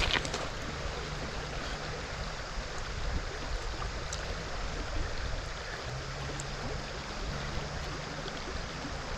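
Shallow braided river running over gravel, a steady rush of flowing water.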